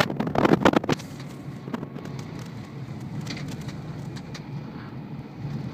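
Street ambience: a steady low rumble of traffic, after a loud crackling burst in the first second, with a few faint ticks.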